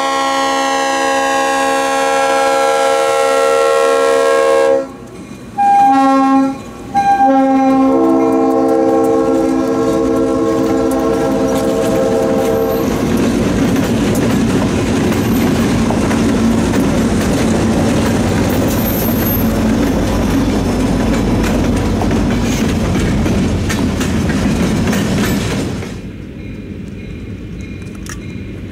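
Diesel freight locomotive horn sounding a long blast, a short blast about six seconds in, and another long blast for a grade crossing. Then the locomotives and cars pass close by, with engines running and wheels clacking over the rail joints. About three seconds before the end the sound cuts to a much quieter background.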